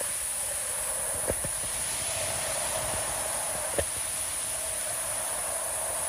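Steady rushing hiss of a swollen, fast-flowing flooded river, with water pouring down from a bridge drain into it. Two brief knocks stand out, about a second in and again around four seconds in.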